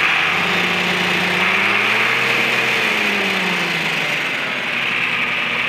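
A 1966 Farmall 1206's six-cylinder turbo diesel running at idle. It speeds up gently to a peak about two and a half seconds in, then settles back to idle by about four seconds.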